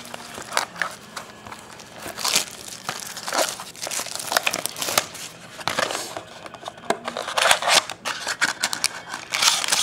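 Foil-wrapped trading-card packs crinkling and rustling as hands pull them from a cardboard box, in irregular crackly bursts.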